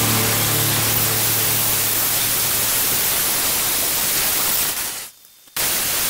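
Angle grinder with a thin cut-off wheel cutting square steel tubing: a steady, loud grinding hiss. It breaks off for about half a second near the end, then comes straight back.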